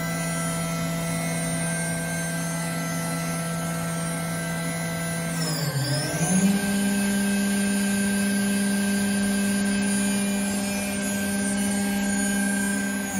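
Electric router spindle of a Homag BOF 311 Venture 15L CNC machining centre running with a steady whine. About six seconds in the pitch dips briefly, then settles higher and holds there as the spindle changes speed.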